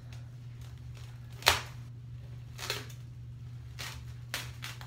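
Scissors snipping through plastic wrap at the roll: about five short, sharp cuts, the loudest about a second and a half in, over a steady low hum.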